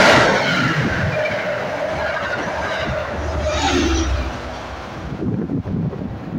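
MBTA commuter rail train of bi-level coaches passing along the platform track and drawing away. The wheels on the rails make a rushing rumble that is loudest at the start and fades as the train recedes, with a steady tone running over it for the first few seconds.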